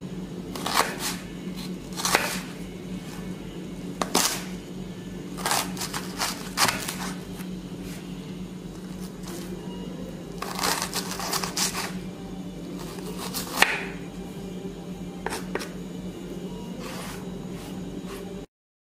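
Knife chopping a red onion on a wooden cutting board: irregular knocks and short scrapes, some in quick runs, with a steady low hum underneath.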